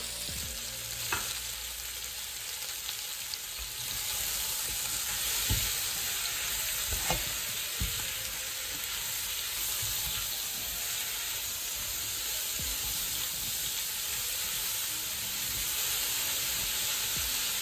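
Diced courgette sizzling in olive oil in a stainless steel pot, stirred with a spatula that knocks against the pot a few times. The sizzle grows louder about four seconds in.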